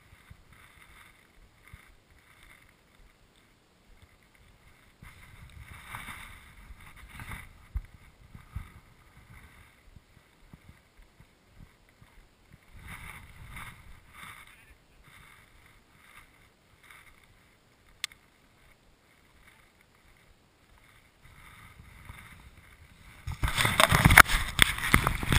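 Skis sliding and turning through powder snow: short swishing rushes a few seconds apart, with a much louder rush of snow near the end.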